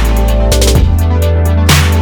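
Electronic background music with heavy sustained bass and a steady beat.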